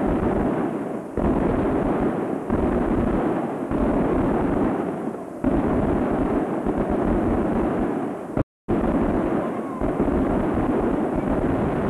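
Daytime fireworks going off in a rapid series of loud bangs, a fresh blast every one to two seconds, each trailing off into a rumble. The audio cuts out for a split second about eight and a half seconds in.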